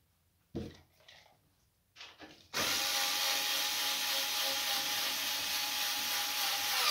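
Cordless electric screwdriver running steadily, driving a screw into a joint of a wooden cot frame; it starts about two and a half seconds in, after a single knock about half a second in.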